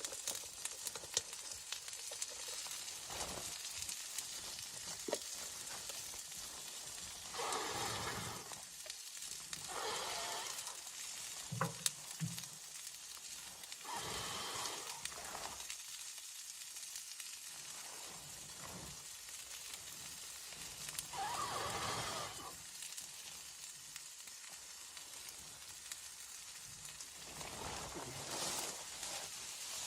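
Steady sizzling hiss peppered with fine crackles. Several louder rushing swells of a second or two each come and go.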